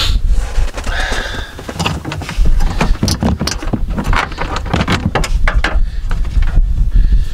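Irregular metal clicks, knocks and rattles from hand work in a pickup truck's engine bay, over a steady low rumble.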